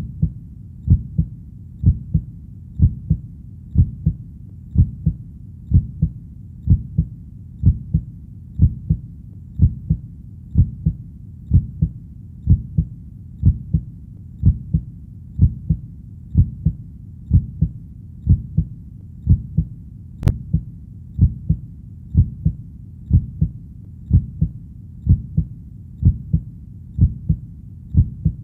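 A heartbeat sounding as a steady lub-dub double thump about once a second, deep and even in pace.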